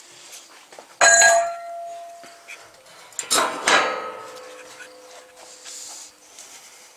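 Two sharp metal clanks, about two seconds apart, each ringing on and dying away: the steel loader bucket settling onto the attachment plate and its spring-loaded latch snapping shut.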